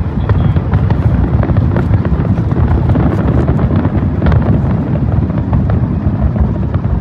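Dense barrage of aerial firework shells bursting, a continuous low rumble of booms with many sharp cracks over it.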